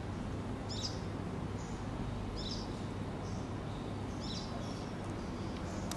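A bird chirping repeatedly in the background: short high calls, one about every second and a half, over a steady low hum.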